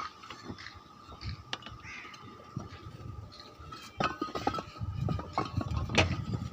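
Roof tiles clinking and knocking against one another and on hard surfaces as they are handled and laid, in a string of short irregular clinks with heavier knocks about four to six seconds in. A thin steady whine runs underneath.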